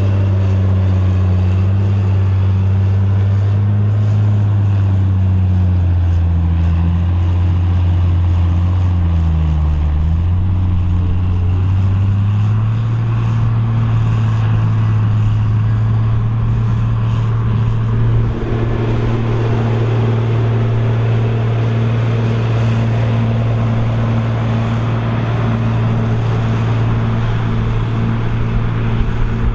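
Krone BigX 700 forage harvester's big diesel engine working hard under load. Its note sags and wavers about ten seconds in, then picks back up and holds steady.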